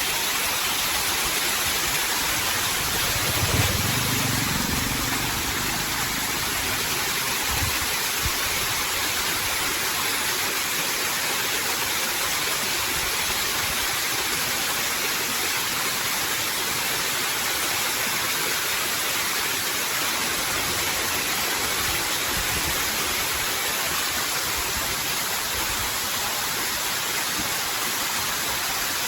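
Steady rushing hiss, even in level throughout, with a brief low thump about three and a half seconds in.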